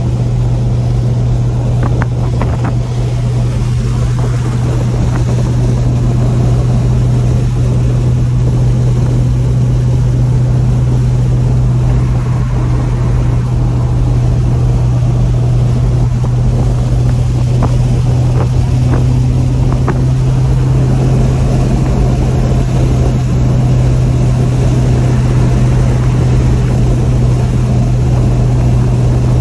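1965 Pontiac GTO engine running at a steady low cruising speed while the car is driven, a constant low hum that holds one pitch, with road and wind noise over it.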